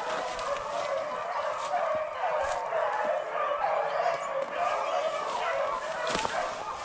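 A pack of rabbit beagles baying, many wavering howls overlapping without a break, with a few crackles of dry leaves and brush underfoot.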